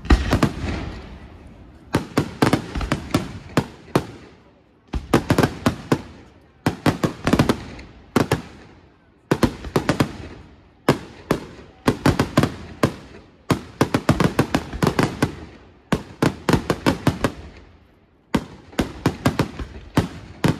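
Aerial firework shells bursting overhead in a rapid, continuous barrage of sharp bangs, coming in clusters every second or so, each cluster trailing off in echo.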